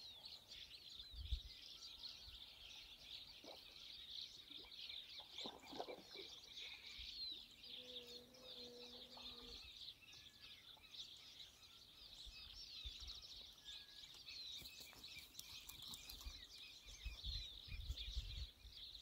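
Faint dawn chorus of many small birds chirping continuously. A brief low steady hum sounds about eight seconds in, and a few low bumps come near the end.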